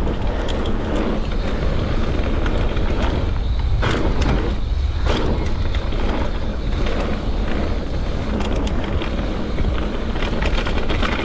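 Mountain bike descending a dirt forest trail: steady wind buffeting on the action camera's microphone over the rumble of the tyres on the dirt, with scattered short clicks and rattles from the bike.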